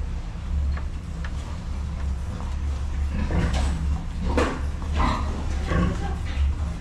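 Piglets grunting and squealing, with a cluster of short calls between about three and six seconds in, over a steady low hum.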